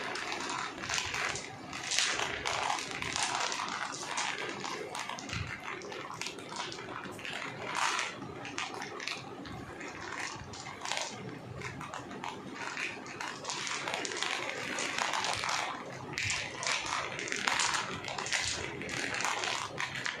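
Dozens of small round plastic bead-marbles rolling on a hard board, clicking as they knock into each other and into the plastic edge bars, in a dense irregular patter.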